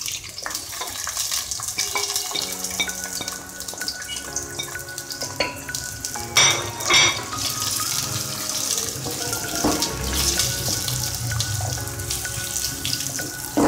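Chopped onions sizzling in hot oil in a steel pot, stirred with a slotted spatula that scrapes and clatters against the pot, loudest about six to seven seconds in. Background music with held electronic notes plays underneath.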